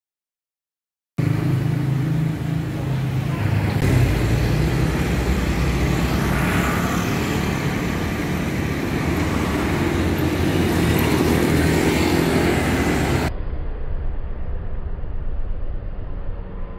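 Street traffic: motorbike and car engines running and passing, a steady engine hum under road noise. It starts after a second of dead silence, and the sound changes abruptly about three-quarters of the way through.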